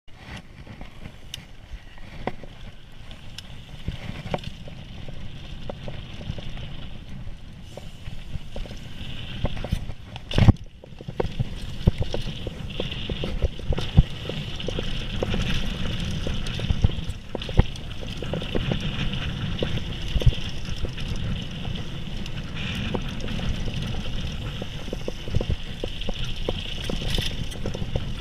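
Mountain bike riding down a dirt flow trail: a steady rumble of wind and tyre noise, broken by frequent clicks and rattles of the bike over bumps, with a hard knock about ten seconds in.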